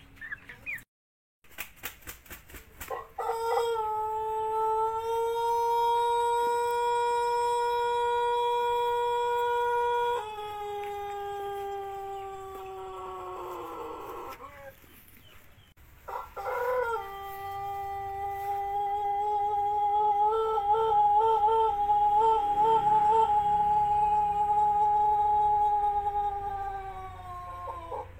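Pelung rooster crowing twice, each crow a long call of about ten seconds held at a steady pitch and falling away at the end, the second with a wavering stretch in the middle. The voice is fairly clear and long after hoarseness from CRD (ngorok), but the bitu of its usual crow has not yet returned.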